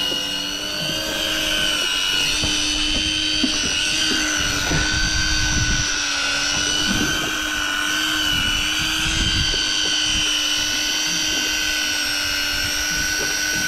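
Daiwa Tanacom 1000 electric fishing reel's motor whining steadily at one pitch as it winds line in from depth.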